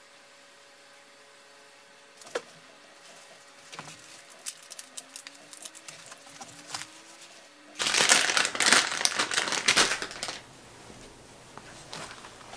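Fishing tackle being handled: a few scattered small clicks, then about two seconds of loud plastic crinkling, as a bag of soft-plastic worm lures is handled.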